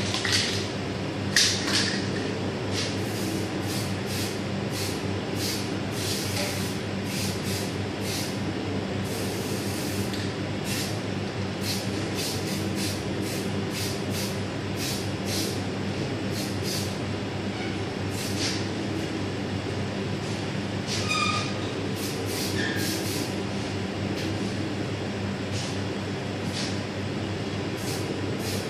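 An aerosol spray can hissing in many short spurts, with a longer spray about a third of the way in, as a pastillage showpiece is sprayed. A steady low machine hum runs underneath.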